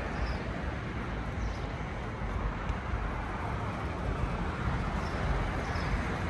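Steady outdoor traffic noise from passing vehicles on a nearby road, a low continuous rumble and hiss, with a few faint high chirps now and then.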